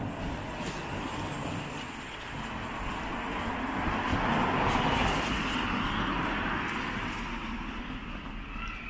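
A car passing by, its engine and tyre noise rising to a peak about halfway through and then fading away.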